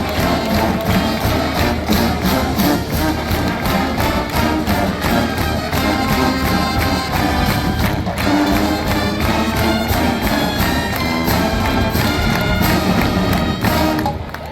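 College marching band playing at full volume, brass over a steady drum beat. The music stops near the end.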